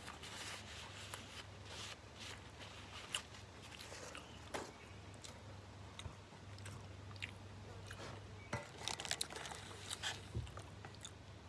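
Faint chewing of a mouthful of Burger King Whopper, with small crunches and mouth clicks. Near the end comes a quick run of crinkly clicks as the burger is handled in its paper wrapper.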